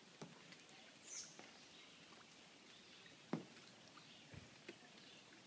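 Near silence: faint background hiss with a few scattered soft clicks and a brief high chirp about a second in.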